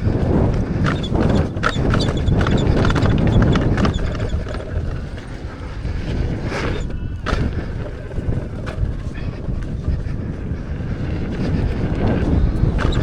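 Wind buffeting the microphone with scattered knocks and rattles while riding an electric unicycle down a dirt trail; the rush eases for a moment about halfway through.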